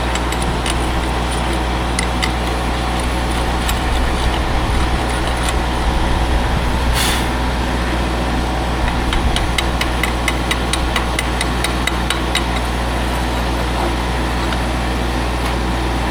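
An engine running steadily, with scattered sharp ticks and taps over it and a brief hiss about seven seconds in.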